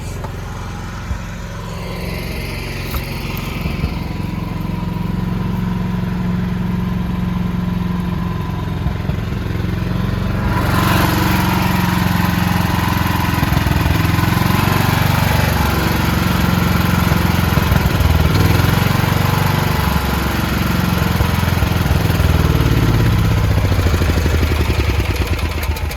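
Standby generator engine running on with its fuel line shut off, burning the last fuel in the line and carburettor. It gets louder about ten seconds in, and its pitch wavers up and down from about halfway through, the engine starting to putter as the fuel runs out.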